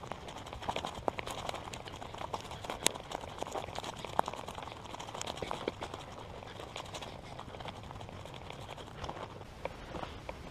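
Footsteps through dry grass and scrub, with many irregular small crackles and snaps of stems and brush against the walker.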